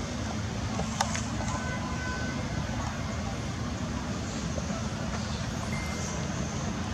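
Steady low background rumble with a sharp click about a second in and a few faint short high tones.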